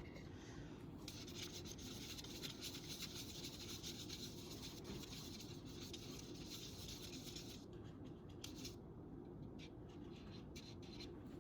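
Faint rubbing and scratching of a paintbrush on a small wooden birdhouse, one continuous stroke-on-stroke rasp for several seconds, then a few short separate strokes.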